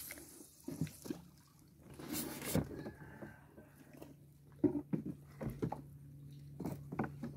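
Light knocks and clicks of spinning rods and reels being handled in a small boat, with a brief whoosh about two seconds in and a faint steady hum underneath.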